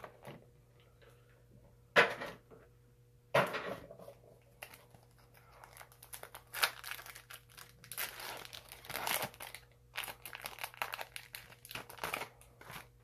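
Foil wrapper of a Yu-Gi-Oh booster pack being crinkled and torn open by hand: two sharp crackles at about two and three and a half seconds, then a long stretch of dense, rapid crinkling as the wrapper is pulled apart.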